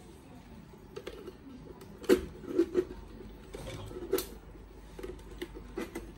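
Irregular light clicks and knocks of hands handling the plastic cab shell of a Lesu RC hooklift truck, with a sharper knock about two seconds in and again about four seconds in.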